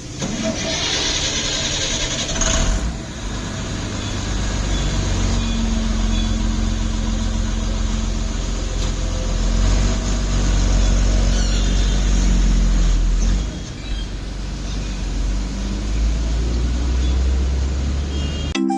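A motor engine running steadily with a low rumble. There is a hiss in the first couple of seconds and a brief dip about three-quarters of the way through.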